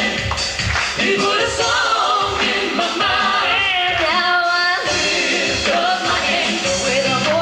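Gospel vocal group singing in harmony over instrumental accompaniment with a steady beat.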